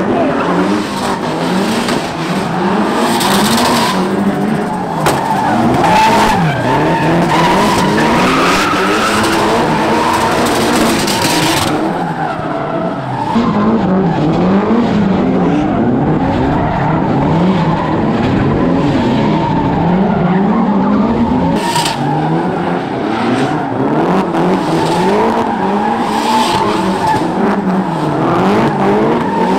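Several drift cars sliding in tandem. Their engines rev up and down again and again while the tyres squeal and skid.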